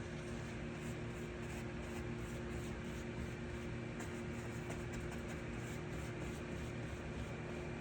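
Steady mechanical hum with a low drone and an even hiss, unchanging throughout.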